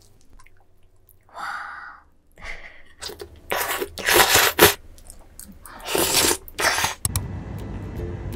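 Slurping of thin-cut squid sashimi noodles dressed in sea cucumber intestine sauce: a few soft wet sounds, then a run of loud, sharp slurps. Near the end it gives way to a steady low street hum.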